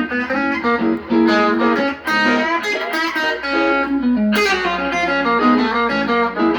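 Guitar playing a quick single-note run of the D-flat major pentatonic scale with chromatic passing notes, the notes stepping up and down several times a second.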